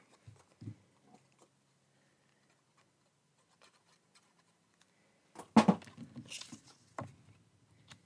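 Pieces of cardstock handled on a glass cutting mat: faint scattered paper ticks, then a brief burst of card rustling and sliding about five and a half seconds in, and a single sharp tap a second later.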